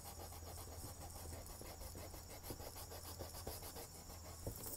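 Graphite pencil scratching lightly on paper in a quick run of short sketching strokes. The sound is faint.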